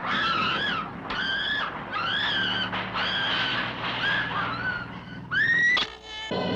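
A woman screaming over and over in short, wavering shrieks, about one a second, ending in a louder rising scream that cuts off suddenly near the end. A steady low hum runs underneath.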